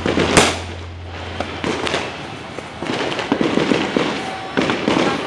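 Fireworks and firecrackers going off: scattered sharp bangs, the loudest about half a second in, then bursts of rapid crackling from about three seconds on.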